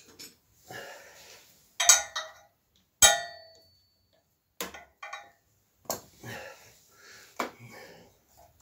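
Hands working the oil filler cap and dipstick on a stopped Grip 13 hp generator engine to check the oil: about five sharp knocks and clicks, the loudest about two and three seconds in, the second of them followed by a brief ringing note.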